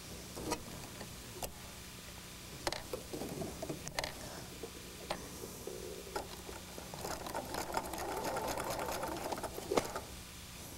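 Electric sewing machine stitching a seam in quilt fabric: a steady run of a few seconds that starts about seven seconds in and stops shortly before the end. Before it come scattered light clicks and rustling as the fabric is handled and set under the presser foot.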